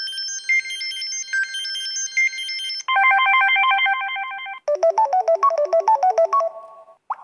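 Samsung Galaxy Grand Prime preset ringtones playing one after another: three different short electronic melodies, each cut off abruptly after two to three seconds as the next begins. The first is high-pitched, the second a fast repeating figure, the third a lower tune.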